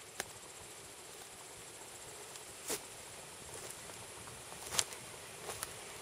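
Wood fire crackling under a steel drum water heater, with a few sharp pops, the loudest near the end, over a steady faint hiss.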